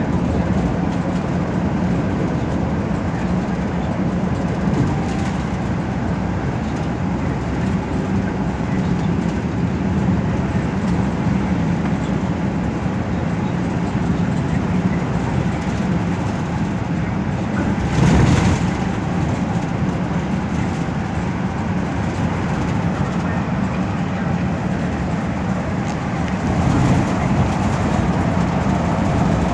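Cabin noise of a moving metropolitan express bus: steady engine drone and road and tyre rumble. About 18 seconds in there is a brief louder rush of noise, and the level rises a little near the end.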